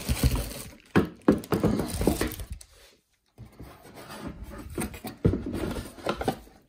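Cardboard packaging being handled: irregular scraping and rubbing with several sharp knocks as hands shift the box flaps and inserts. The sound drops out completely for a moment around the middle.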